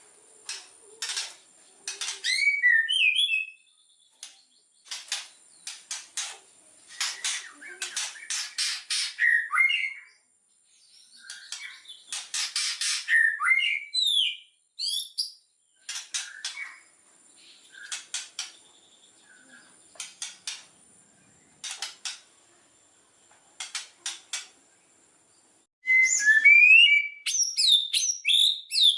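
White-rumped shama (murai batu) singing in bursts: harsh, rattling clicks mixed with short whistled phrases that slide up and down, with brief pauses between phrases. A loud run of quick whistles comes near the end.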